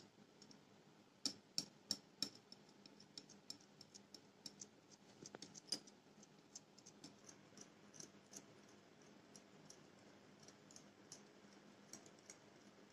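Faint, irregular clicks of a wire whisk tapping the sides of a glass bowl while cream and mango pulp are whisked together, the clicks thicker in the first few seconds and sparser later.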